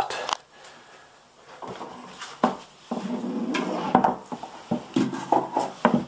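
Scattered knocks and clatter from working an old electrical box and its wiring out of a cut opening in drywall, with rustling between the knocks.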